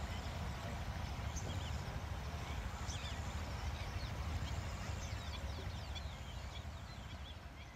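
Outdoor riverside ambience: many birds chirping and calling over a steady low rumble, the whole fading out gradually over the last few seconds.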